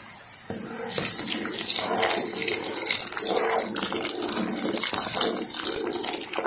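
Pan of chicken vegetable soup at a rolling boil, bubbling and sloshing as a plastic spoon stirs it, louder from about a second in.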